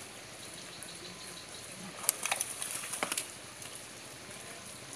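A quick cluster of sharp clicks and light clattering, about a second long, starting about two seconds in, over a steady background hiss.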